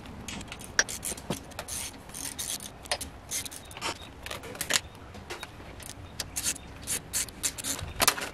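A head gasket scraping and clicking against the steel head studs as it is worked down onto a diesel engine block, with a small hand tool clinking now and then. The clicks and scrapes are irregular and sharp.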